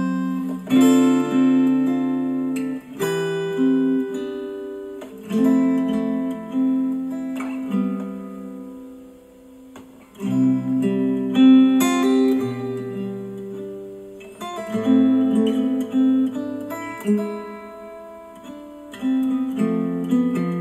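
Slow music played back through Dayton Audio B652 Air bookshelf speakers driven by a Yamaha A-S301 amplifier and picked up by a microphone in the room. Chords are struck about every two seconds and left to ring out, and the music fades almost to quiet about halfway through before picking up again.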